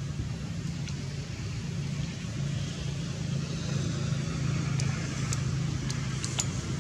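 Steady low rumble of a motor vehicle engine under an even hiss, with a few sharp clicks in the second half.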